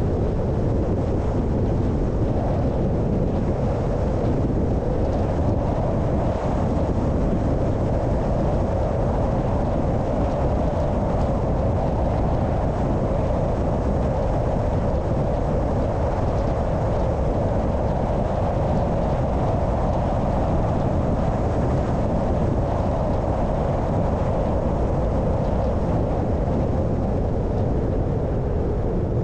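A car driving along a road: steady engine, tyre and wind noise.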